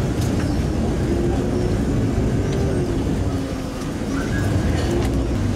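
Steady low rumble of a Venice vaporetto (water bus) engine, heard on board while the boat cruises along the canal.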